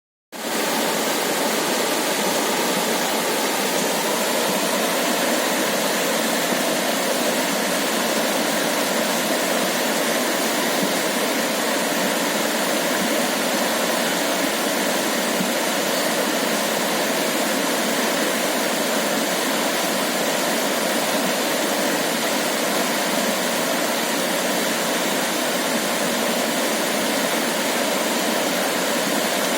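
River water flowing over pebbles, a steady rush of water.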